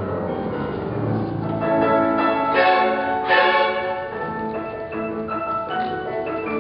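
Ensemble of violins and a double bass with piano playing a classical-style piece, the strings sustaining notes and swelling louder in the middle.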